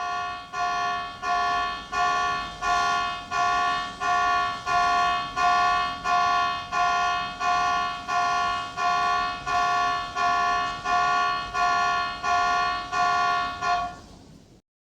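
A pitched warning-signal sound effect, repeating steadily about one and a half times a second, each note fading before the next, about twenty times in all, then stopping shortly before the end.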